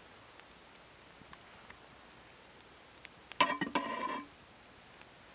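Sausages sizzling faintly in a cast-iron skillet, with scattered small pops. About three and a half seconds in, a steel knife blade scrapes across the pan with a short squeal lasting under a second.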